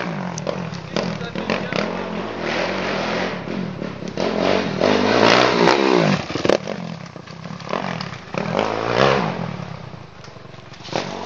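Dirt bike engine revving as the bike rides past up the slope, loudest about five to six seconds in, then dropping in pitch as it moves away; the engine swells again briefly near nine seconds.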